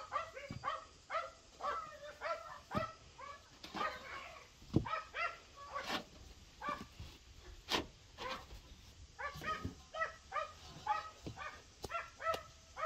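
A dog barking in quick, short, repeated yaps, with several sharp knocks as flatbreads are handled on a metal baking tray, the loudest about five and eight seconds in.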